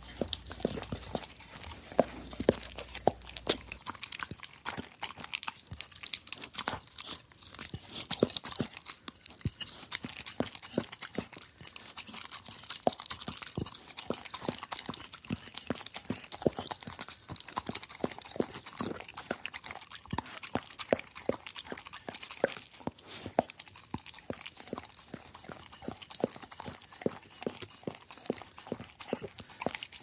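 Dog licking a plate: a fast, uneven run of tongue smacks and clicks against the plate that keeps on without a break.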